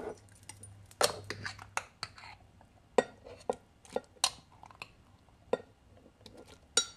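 Metal spoon clinking and scraping against a glass jar and a glass measuring cup while cooked white beans are scooped out: about ten sharp, irregularly spaced clinks.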